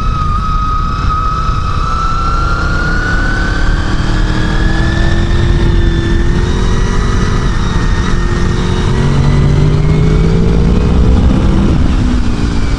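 1999 Honda VFR800's V4 engine running under load through a chicane and onto a straight. Its pitch climbs gradually as the bike accelerates, then drops near the end, over a heavy rush of wind on the bike-mounted microphone.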